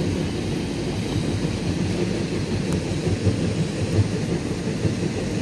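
Truck running on the road: a steady low rumble of engine and road noise.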